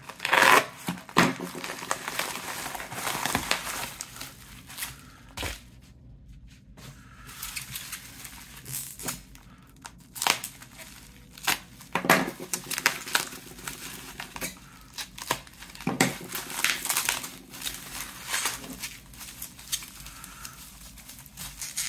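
Plastic bubble mailer slit with a folding utility knife and pulled open, then bubble wrap crinkling as it is cut and unwrapped from a phone: irregular rustles and crinkles with scattered sharp crackles.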